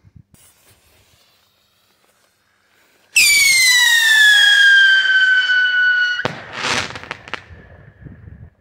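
A whistling firework lets out a loud shriek about three seconds in, its pitch falling steadily for about three seconds. It then ends in a bang followed by a few short cracks.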